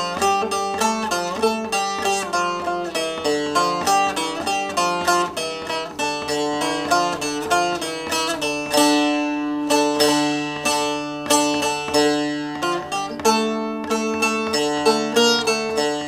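Long-necked bağlama (saz) played with a plectrum in quick down-and-up strokes, picking out the instrumental melody of a Turkish folk song in shifting uneven meters. About halfway through it settles on a few long, ringing low notes, then the quick runs resume.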